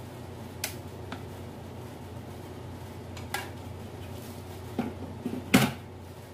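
A plastic spatula knocking and clinking against a stainless steel pot while stirring foaming soap mixture, about five short knocks, the loudest near the end.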